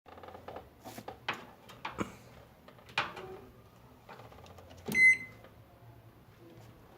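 Whirlpool microwave oven: several sharp clicks and knocks, then a thump with a short high beep about five seconds in, over a low steady hum.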